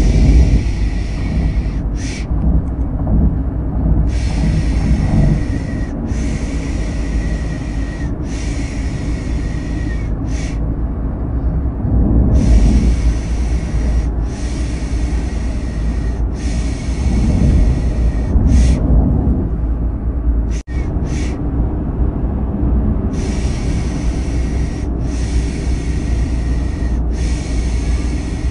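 Steady low rumble of a car engine and road noise, overlaid with a 'shh' shushing hiss repeated about every two seconds: a sleep sound for calming a baby. The sound cuts out for an instant about two-thirds of the way in.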